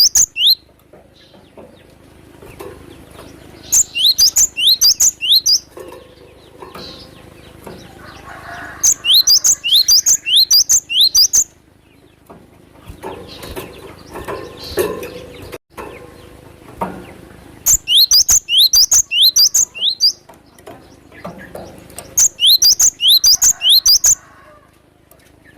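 Cinereous tit (glatik batu) calling in loud bursts of rapid, high, downward-sweeping notes. There are four bursts of about two seconds each, with quieter rustling sounds in the gaps between them.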